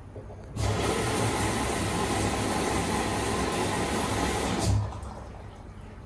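LG front-loading washing machine taking in water: a steady rush of water spraying into the drum, starting abruptly about half a second in and cutting off just before five seconds.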